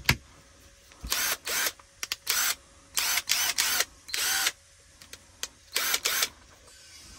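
Hyper Tough 12V brushed cordless impact driver spinning with no load in a series of short trigger pulls, about eight quick bursts of the motor with pauses between. This is a test run after reassembly to check that it still works. A sharp click comes right at the start.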